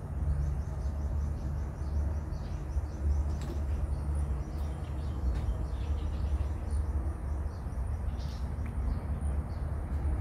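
Small birds chirping in quick, repeated short calls over a steady low rumble.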